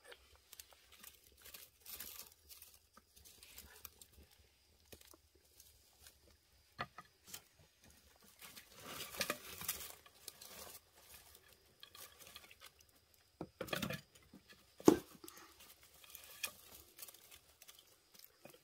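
Dry brushwood crackling and ticking softly as it burns in a Korean agungi fire-hole, with rustling as sticks are pushed in and shifted, and two louder knocks in the last third.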